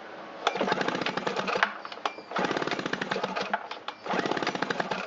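Three quick pulls of the recoil starter on a Harbor Freight Tailgator two-stroke generator, each a burst of rapid clicking as the engine spins freely with its spark plug out. The engine is being cranked to test the spark from a newly fitted ignition coil.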